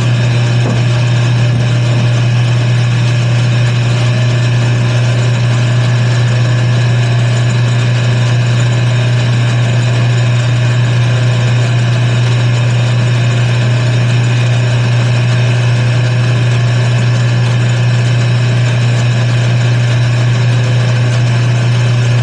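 Wood lathe running steadily at constant speed with a strong, even low hum and a faint whine above it, spinning a toy top as it is coloured with markers.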